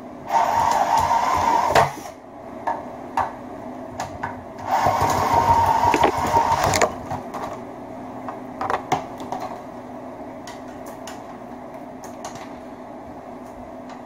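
Makita cordless drill spinning a benchtop wire stripping machine, run in two bursts of about a second and a half and two seconds, each with a steady whine. Scattered light clicks and taps follow as the wire is handled.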